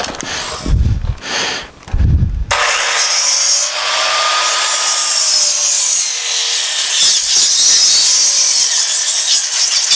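An electric chop saw cutting through a Western Red Cedar 2x6. A few low thumps come first, then from about two and a half seconds in the blade runs through the wood with a steady, loud, hissing rasp. The cut tends to bind, in the sawyer's words "wanted to bind up".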